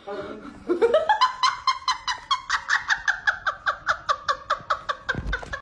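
A woman laughing hard: a long run of quick, high-pitched bursts of laughter, about five a second, rising in pitch over the first second.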